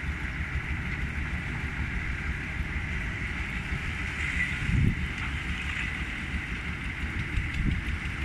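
Excavator engine running steadily, with a brief swell in level about five seconds in.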